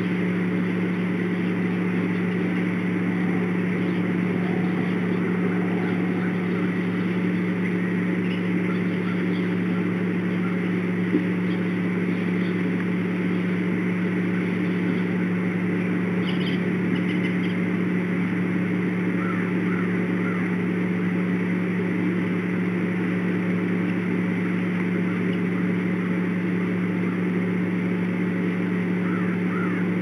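Steady low drone with a constant humming tone, and a few faint, brief high bird chirps scattered through it.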